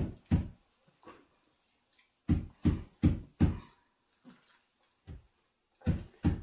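Dull knocks and thumps, short and deep, in quick runs of two to four about a third of a second apart, with a quieter gap in the middle.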